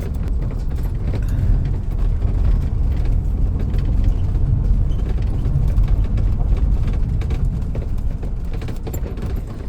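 A vehicle on the move: a steady low road-and-engine rumble with faint rattles.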